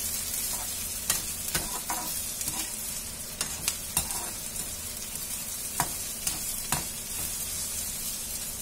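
Chopped onions sizzling steadily in oil in a metal kadhai while a perforated metal spatula stirs them, scraping and clicking against the pan every second or so.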